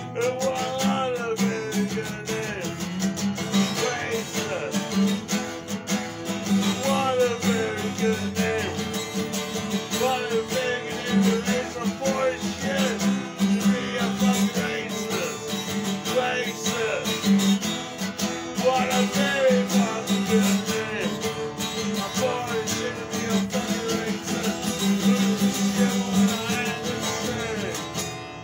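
Acoustic guitar strummed in a steady rhythm with a man singing over it, the song fading out near the end.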